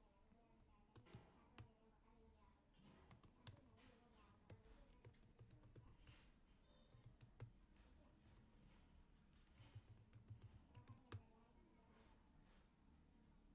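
Faint computer keyboard typing: irregular keystroke clicks in short runs.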